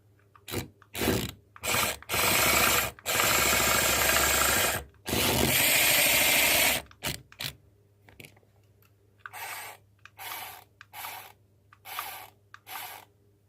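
A small toy radio-controlled car's electric motor and gears whirring in bursts as it is driven: a few short bursts, then three long runs of a second or two, then a string of short bursts a little over once a second. One wheel has lost its rubber tyre, so the car does not drive well.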